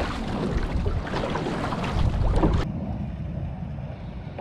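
Water rushing and splashing along the hull of a sprint canoe under way, with wind buffeting the microphone. About two-thirds of the way through it cuts off suddenly to a quieter, steady wind hiss.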